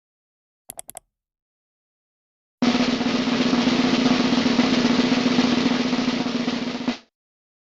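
Four quick, sharp taps, then about two and a half seconds in a snare drum roll starts abruptly. It runs evenly for about four seconds and dies away quickly near the end.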